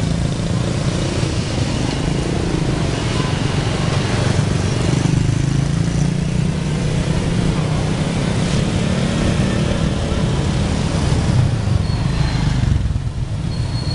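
Busy street traffic: a steady rumble of small motorcycle engines and cars running close by.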